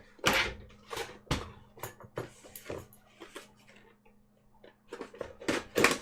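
Trading-card booster packs and their cardboard box being handled: a series of short crinkles, rustles and light knocks, quieter for a moment around four seconds in.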